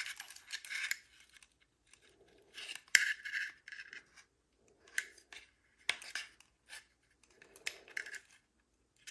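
Metal keys being handled on a hard surface: short bursts of clinks and scrapes, the sharpest about three seconds in.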